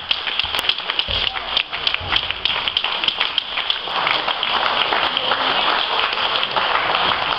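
Spectators clapping and talking, with many sharp hand claps over crowd chatter in a large sports hall.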